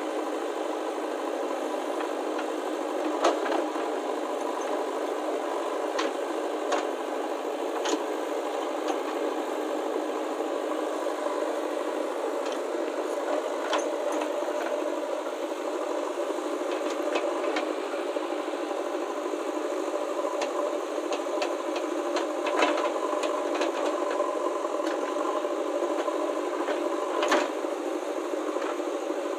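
JCB 3DX backhoe loader's diesel engine running steadily under load while the backhoe digs, with a sharp knock every few seconds from the bucket working through the stony soil.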